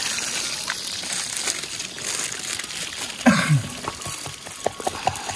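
Crinkling and rustling as something is handled, with scattered light knocks over a steady hiss. The loudest moment is a short sound falling in pitch, about three seconds in.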